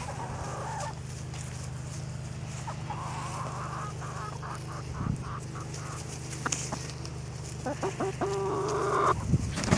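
Hens clucking: a run of short, evenly repeated clucks about halfway through and more clucking near the end, over a steady low hum.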